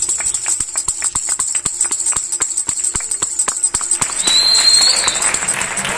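Hand tambourine struck in a quick steady rhythm, its jingles ringing with each stroke. About four seconds in, the rhythm gives way to steady applause with a short high whistle.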